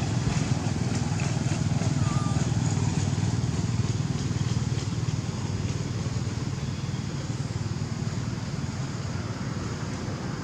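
A motor vehicle engine running steadily nearby, heard as a continuous low rumble that fades slightly toward the end.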